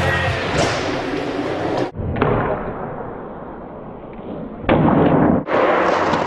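Skateboard hitting a hard floor: a sharp clack about two seconds in, then a loud landing after a jump down a set of stairs near five seconds in, followed briefly by the wheels rolling.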